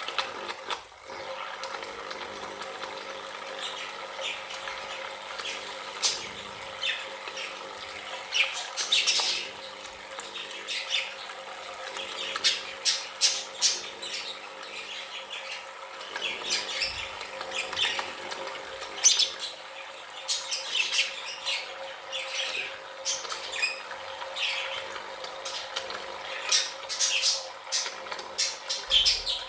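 Budgerigars chirping and chattering, many short sharp calls coming one after another, over a steady faint hum.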